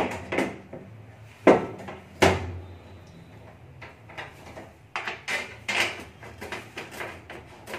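Knocks and clicks of a kitchen chimney hood's filter being pushed up into the hood and fitted in place: two sharp knocks about a second and a half and two seconds in, then a run of lighter clicks and taps a couple of seconds later.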